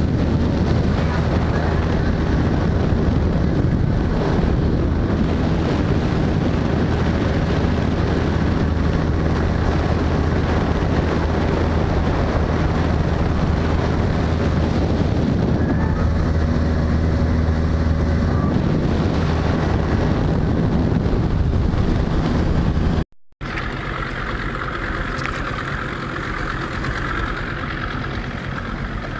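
Boat motor running steadily under way, with wind on the microphone and water rushing past the hull. About 23 s in the sound cuts off abruptly and picks up again quieter, the motor now running slower.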